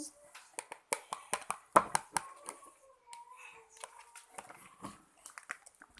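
Irregular clicks and taps of hands working a container and stirrer while mixing shampoo-and-salt slime.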